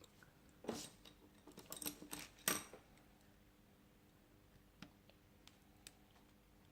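Faint clicks and taps of small tools and metal parts being handled while a smartphone is taken apart: a cluster of clicks between about one and three seconds in, the loudest near the middle, then a few light ticks.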